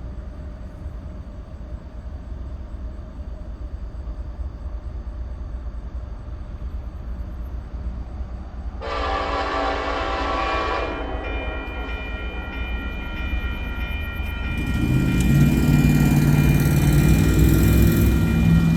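Union Pacific freight train approaching behind an SD70AH lead locomotive: a low rumble grows, the air horn sounds one blast about halfway through, then sounds again in a long held blast near the end. As the locomotives draw level, their diesel engines come in loud under the horn.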